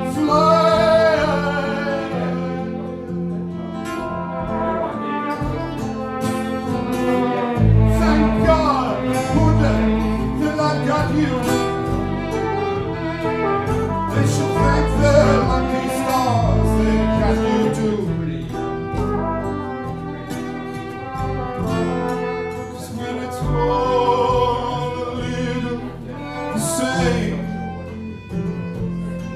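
A small acoustic band playing live: strummed acoustic guitar, double bass, violin and flugelhorn, with a man singing the lead.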